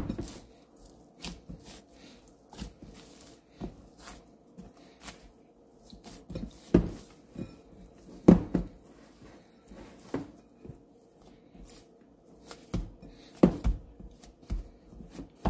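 Hands kneading a flour-and-water dumpling dough in a glass bowl: irregular soft thuds and knocks as the dough is pressed and turned against the glass, with a few louder thumps about seven, eight and thirteen seconds in.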